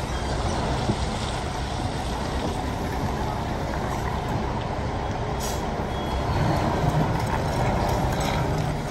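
Kato SL-800Ri rough-terrain crane's diesel engine running as the crane manoeuvres slowly, getting louder about six seconds in. A short hiss about five and a half seconds in.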